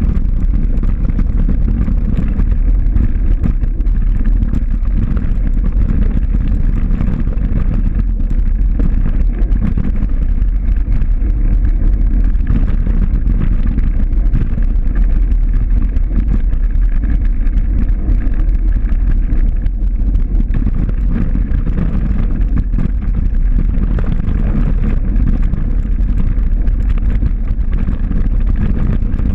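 Steady low rumble of wind buffeting the microphone of a camera on the move, with no engine tone in it.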